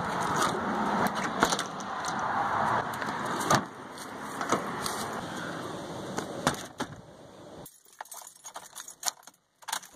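Keys jangling on a key ring among the clicks and knocks of a car door being opened, with a loud click about three and a half seconds in, then scattered small key clinks as a key goes into the ignition near the end.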